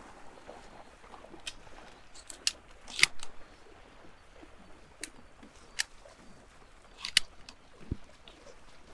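A scattered series of short, sharp clicks, about eight in all, the loudest about three seconds in.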